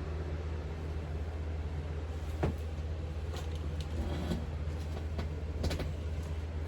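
A steady low mechanical hum with a few sharp knocks and clicks from a bed frame being handled. The loudest knocks come about two and a half seconds in and again near six seconds.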